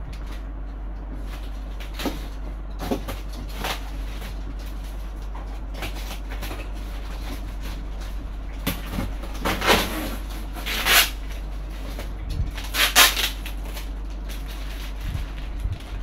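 Cardboard box and plastic packaging being handled during unpacking: rustling, scraping and light knocks, with a few louder harsh rasps about ten to thirteen seconds in, over a steady low hum.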